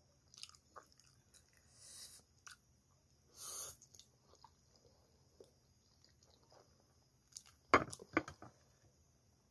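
Close-up eating sounds of a person chewing soft pasta, with small mouth clicks throughout and a short slurp about three and a half seconds in. Near the end comes a quick cluster of sharp clicks, the loudest sound here, from the chopsticks at the plate.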